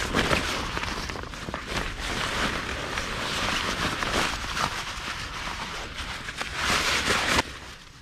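Rustling and scraping of a nylon weigh sling and landing-net mesh being handled around a carp in an unhooking cradle, a busy crackling rustle that cuts off suddenly near the end.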